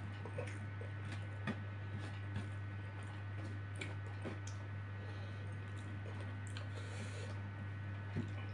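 Quiet hand-eating sounds: chewing and fingers picking rice and duck meat off a paper wrapper, heard as a few faint scattered clicks over a steady low hum.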